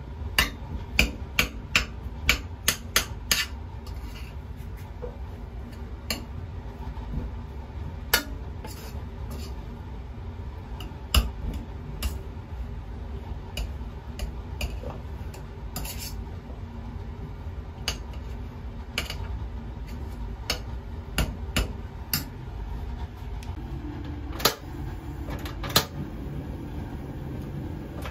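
Sharp clicking knocks against a stainless steel pressure-cooker pot as boiled potatoes are mashed in it by hand: a quick run of about eight in the first few seconds, then scattered knocks, over a steady low hum.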